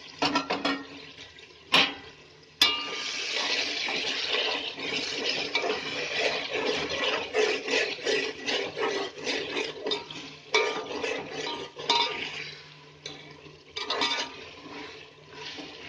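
Metal ladle stirring and scraping softened tomato-onion masala around a metal pot, the hot oil sizzling under it. Two sharp knocks come about two and three seconds in, then the stirring and sizzling grow loud and run until near the end.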